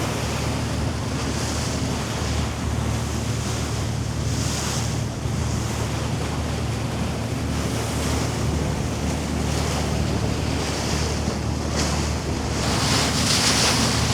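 Motor yacht running underway: a steady low drone from its engines under rushing wind and water, with wind buffeting the microphone. The wind noise grows louder near the end.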